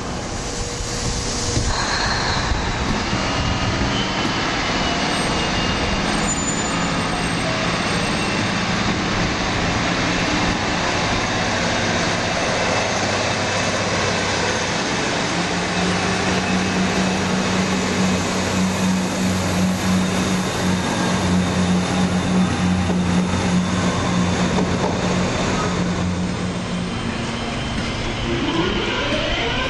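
A London Midland Class 153 and Class 170 diesel multiple unit working together, running through the station with their underfloor diesel engines droning steadily; the drone grows stronger about halfway through. Near the end there is a rising electric whine from a Class 323 electric multiple unit.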